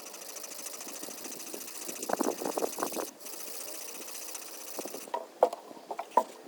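Blade being stroked back and forth on a sharpening stone: a rapid, rhythmic gritty scraping, heavier for a second or so midway, followed by a few sharp knocks near the end.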